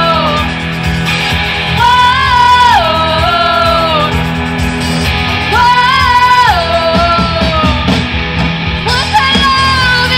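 Live rock band playing, drums, bass, electric guitars and keyboard, with a woman singing over it in high, long-held notes that slide down in pitch at the end of each phrase.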